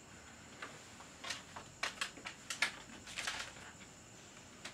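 Quiet room: a cluster of soft rustles and light taps, the loudest around the middle, over a steady faint high-pitched tone.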